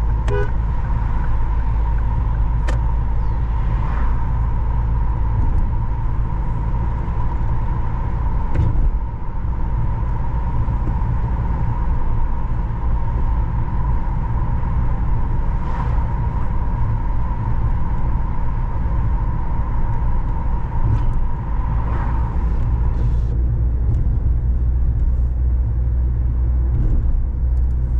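Steady low rumble of a car on the move, with a faint steady whine that stops about 23 seconds in and a few light clicks.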